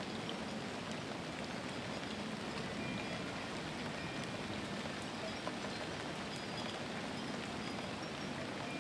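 Steady rain falling: an even hiss with small scattered drop ticks and one slightly louder tick about halfway through.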